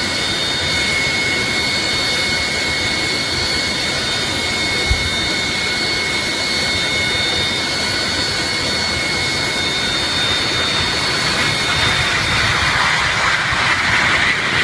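Jet airliner engines running with a steady high whine, several held tones over a rush of noise. A short low thump about five seconds in; near the end the whine gives way to a louder, rougher rush of noise.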